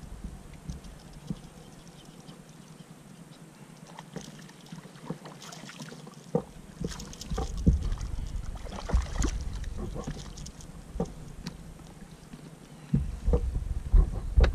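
Scattered knocks and rustles from gear being handled on an inflatable kayak while a fish is played on the rod, with a low wind rumble coming and going and a few hissing splashes of water.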